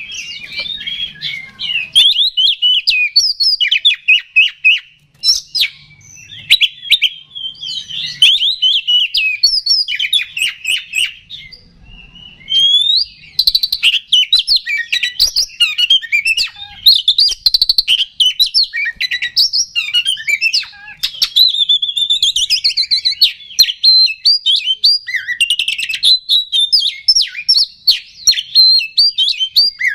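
Male Oriental magpie-robin (kacer) singing a loud, fast, varied run of whistles and chattering notes with hardly a break. It pauses briefly around the middle, then goes on. This is the agitated, fighting-mood song kept to provoke other magpie-robins.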